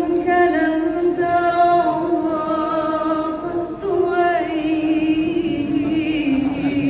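A woman singing a slow melody into a handheld microphone, with long held notes joined by sliding ornaments and a short break for breath about four seconds in.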